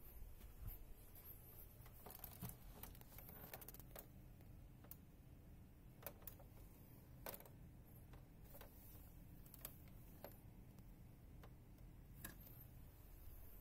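Near silence: faint room hum, with scattered small clicks from the phone being handled.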